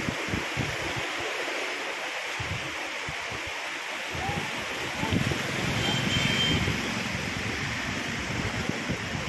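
Muddy floodwater of a river in spate rushing and churning, heard as a steady wash, with wind buffeting the microphone in uneven gusts that grow stronger about halfway through.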